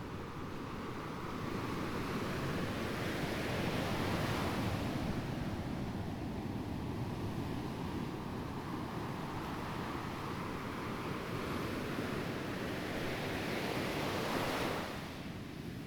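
Sea waves surging and washing on the shore, with a steady low rumble of surf beneath. One swell builds about four seconds in, and a second, hissier wash near the end falls away suddenly.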